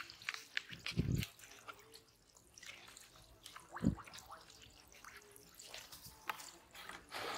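Scattered drips and small splashes of water, with two soft low thuds, about a second in and near four seconds.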